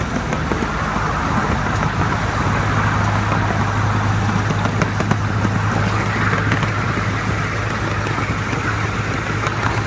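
A 7¼ inch gauge miniature train running along the track: a steady rumble of wheels on rails with a low hum and a few faint clicks.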